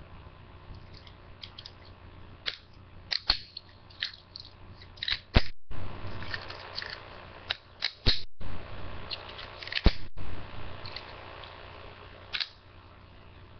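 Ratchet folding knife being handled and closed by hand: soft handling noise with scattered sharp clicks, a few much louder ones in the middle.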